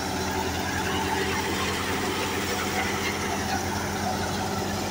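Tractor-powered wheat thresher running steadily while threshing: the tractor's diesel engine and the belt-driven drum and blower make one even, unchanging hum.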